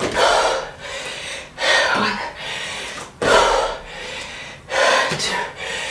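A woman breathing hard through a bodyweight workout: four forceful exhales, about one every second and a half, in time with her jump-squat reps.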